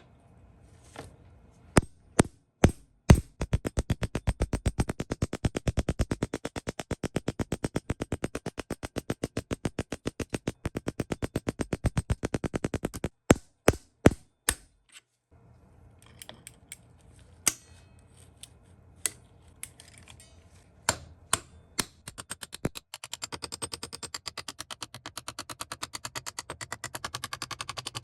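A rapid, even run of clicks lasting about ten seconds, then scattered single clicks and knocks, then a softer fast clicking run near the end: workshop tool work on the pistol's parts.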